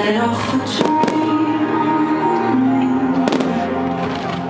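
Aerial firework shells bursting, a few sharp bangs about a second in and again past three seconds, over loud music playing throughout.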